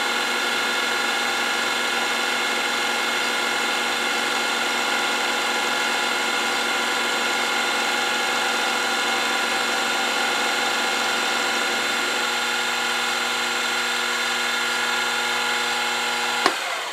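Milling machine running with its end mill taking a light skim cut along the top of a workpiece: a steady whine with several fixed tones. It is switched off with a click near the end and spins down.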